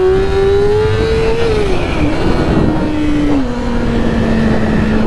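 2008 Yamaha R6's 600 cc inline-four engine under way, its pitch climbing briefly, then dropping in two steps as the revs fall and settling at a steady speed, with wind rush over it.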